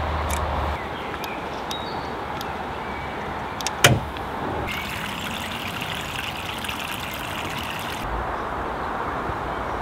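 A single sharp click about four seconds in, a push button being pressed on an electric lock control panel, over a steady rushing hiss.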